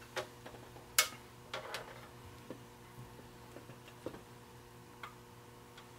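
Light, irregular clicks and knocks of a tractor dash panel fitted with gauges being handled and set down on a workbench, the sharpest about a second in. A steady low hum runs underneath.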